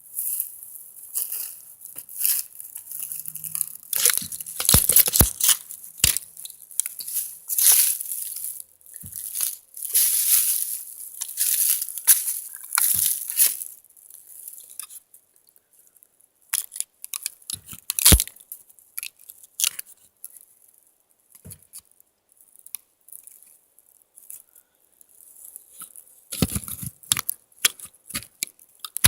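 Irregular rustling and crunching from someone moving about, thick for the first half and sparser after, with one sharp knock about eighteen seconds in.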